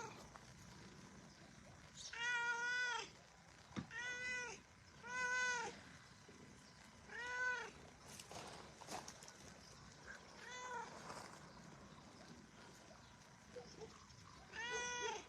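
Domestic cat meowing six times, each meow about half a second to a second long and rising then falling in pitch, with gaps of one to four seconds between.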